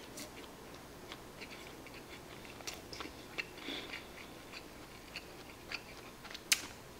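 Quiet chewing of a mouthful of nori-wrapped rice ball (onigiri), heard as scattered small mouth clicks, with one sharper click near the end.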